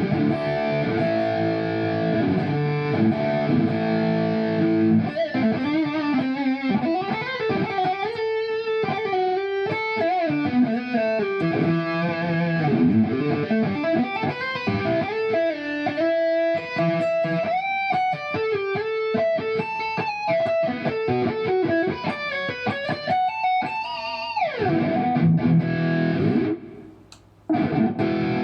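Kiesel Vader electric guitar with Kiesel Polarity pickups in active mode, played through high-gain distortion. It opens with rhythmic distorted chords, then fast single-note legato lead lines. Near the end a note slides down in pitch, the playing breaks off briefly, and chords come back.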